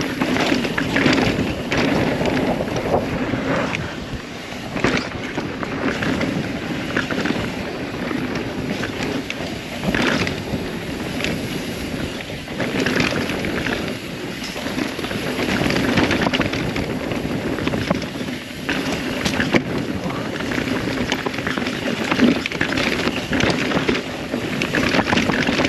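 Wind rushing over the camera microphone and tyres rolling on a dirt trail as a 2021 Rocky Mountain Altitude mountain bike descends at speed. Irregular knocks and rattles come through as the bike hits bumps.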